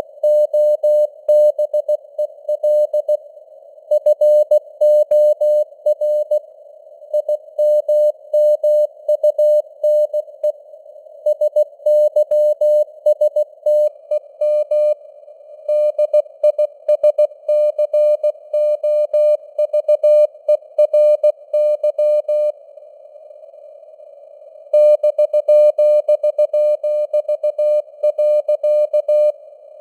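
Morse code (CW) sent at 16 words per minute: a single steady mid-pitched tone keyed on and off in dots and dashes, over a faint radio-band hiss of simulated noise. The keying stops for about two seconds near the end, then resumes.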